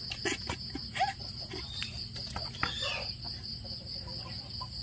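Crickets chirring in a steady, high, evenly pulsing trill, with a few faint knocks and taps.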